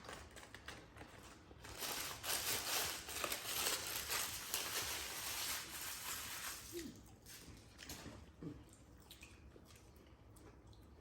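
Eating at a table: chewing and handling of McDonald's food and its paper wrappers and bags, with a dense crinkling rustle from about two seconds in to about seven seconds, then quieter chewing.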